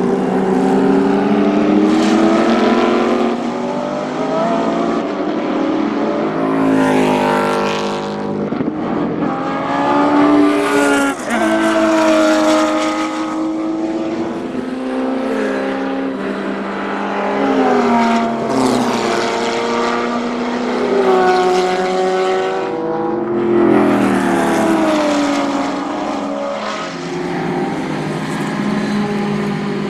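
Porsche 917 K's flat-twelve racing engine at full throttle. The pitch climbs, drops at each gear change and climbs again, several times over, with falling pitch as the car eases off or passes.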